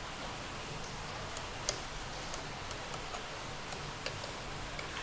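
Steel ladle moving through thick gravy in an aluminium pressure cooker, giving a few faint, sharp clicks against the pot over a steady low hiss.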